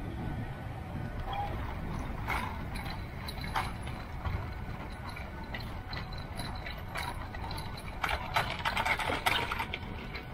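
Aeros ANT electric nanotrike rolling over bumpy grass: a steady low rumble of wheels and wind, with bouts of rattling and knocking from the frame about two seconds in and again near the end.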